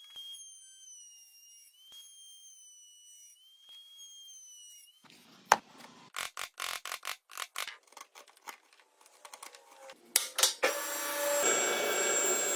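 Woodworking tools on wood: a run of short, sharp sawing or rasping strokes, then a power tool starting up about eleven seconds in and running loudly.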